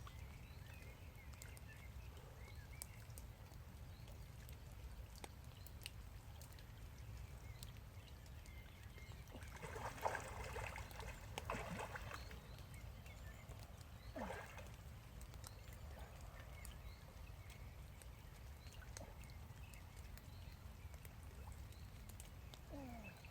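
Faint outdoor ambience: a steady low rumble with scattered light ticks, and a brief slosh of water about ten seconds in, with a shorter one a few seconds later.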